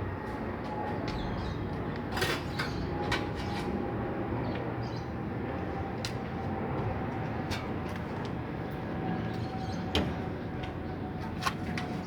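Whirlpool washing machine running under test after new suspension rods, springs and switch are fitted. Its motor whine sinks slowly in pitch, and sharp clicks or knocks come now and then.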